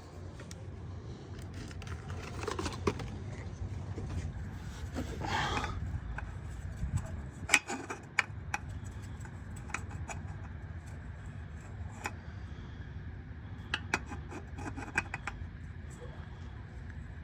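Hand handling of small metal and plastic parts and tools: scattered sharp clicks and clinks with rubbing and scraping, and a louder rustle about five seconds in.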